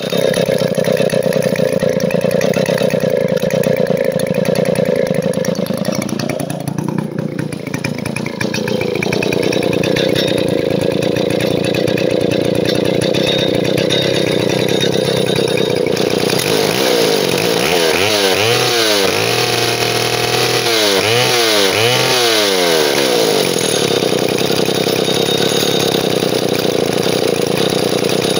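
Vintage Stihl Contra two-stroke chainsaw engine running. Its speed sags briefly about a quarter of the way in, then rises and falls several times as the throttle is worked in the middle.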